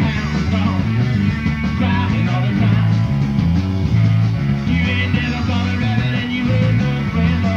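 Rock band of electric guitar, electric bass and drums playing a rock-and-roll song, with a busy bass line stepping from note to note.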